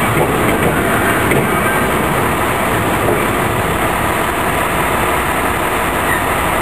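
Steady mechanical rumble and rail noise from a rail-mounted shop mover and the locomotive it is handling on a locomotive turntable.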